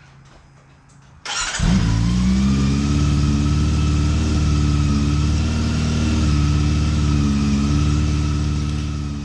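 Honda CB400 inline-four motorcycle engine started on the electric starter about a second in: it cranks briefly, catches and settles into a steady idle, running on its newly replaced fuel pump.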